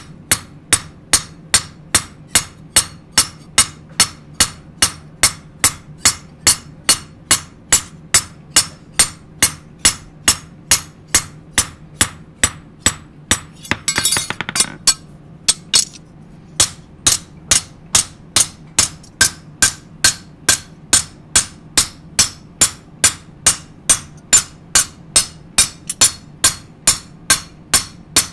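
Hand hammer striking a steel kitchen-knife blank on an anvil at a steady pace of about two blows a second, each blow ringing sharply: cold hammering (nama-tataki) to compact the steel and shape the blade. About halfway a brief harsh rasp sounds and the blows stop for a second or two before resuming.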